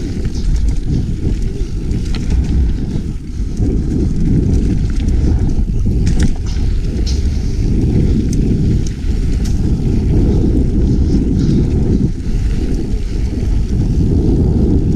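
Mountain bike riding down forest singletrack: constant wind buffeting and tyre rumble on the camera's microphone, with scattered sharp clicks and rattles.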